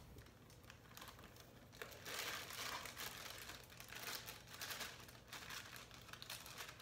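Plastic bag of brownie mix crinkling in irregular bursts as it is shaken and squeezed to empty the mix into a mixing bowl, louder from about two seconds in.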